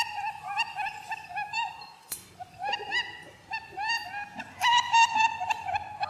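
Rapid, squeaky animal calls, many short chirps a second, each rising and falling in pitch. A sharp click comes about two seconds in, followed by a short lull before the calls resume.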